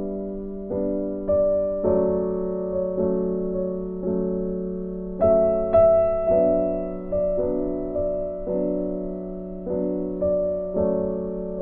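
Background piano music: slow notes and chords, each struck and then ringing and fading.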